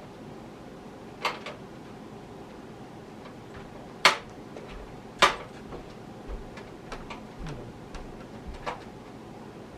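Sharp metallic clicks and knocks from a power supply and PC case being handled during installation. Two loud knocks come about four and five seconds in, and lighter ticks follow.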